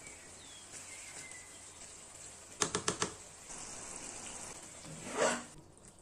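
Ground beef in tomato sauce simmering and sizzling in a frying pan, a steady hiss. About halfway there is a quick run of four clinks, and near the end a short scrape.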